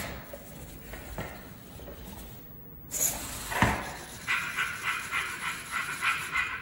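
SunFounder PiDog robot dog playing dog sounds through its small onboard speaker as it wakes up: breathy huffs at the start and about three seconds in, then quick rhythmic panting at about five breaths a second.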